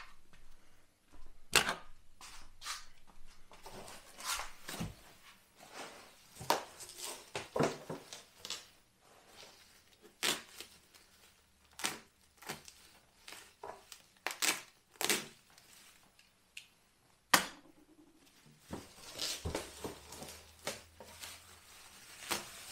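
Bubble wrap and packing tape being slit with a utility knife and pulled off: irregular crinkling and rustling of plastic, tape tearing, and sharp crackles with short quiet gaps between handlings.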